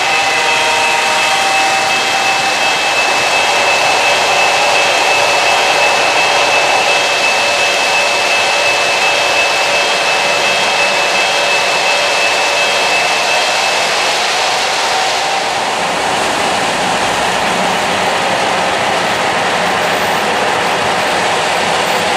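O-gauge three-rail model trains rolling along the track: a steady rolling rumble of metal wheels on rail with a whine from the locomotive motors and gears. About fifteen seconds in the whine fades and the sound turns lower and duller.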